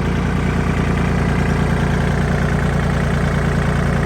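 An engine running steadily at an even speed, with a fast low pulse.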